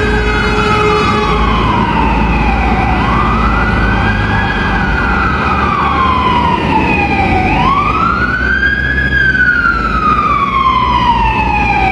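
Fire engine siren wailing, about three slow cycles, each climbing quickly and then sliding slowly back down.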